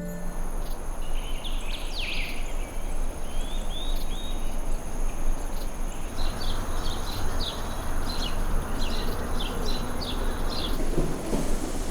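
Natural outdoor ambience: birds giving short chirps, with a quick run of repeated notes in the second half, over a steady high insect drone and an even background rush.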